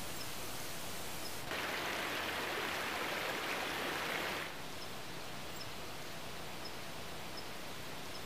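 Shallow creek water running over rocks: a steady rushing hiss, louder for about three seconds in the middle, over a constant background hiss.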